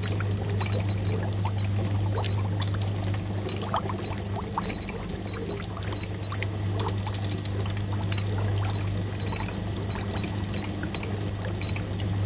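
Water pouring and splashing steadily into glass aquarium tanks, with a fine crackle of falling streams over a steady low hum.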